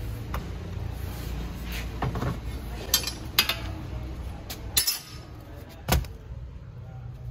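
Scattered sharp clinks and knocks of tools at a wood-fired bread oven, about seven in all, over a steady low rumble.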